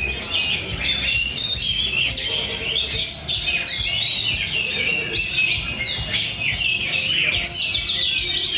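Many caged songbirds singing at once in a competition: a dense, steady tangle of fast chirps and trills.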